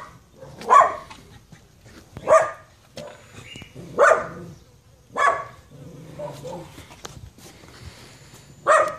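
A dog barking repeatedly: single short barks about every second and a half, with a longer pause before one more near the end.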